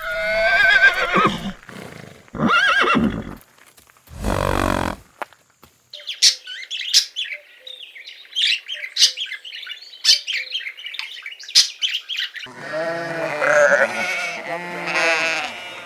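A run of farm animal calls: two drawn-out calls in the first three seconds, a short rough low snort about four seconds in, then several seconds of quick high chirps. Near the end come overlapping bleating calls.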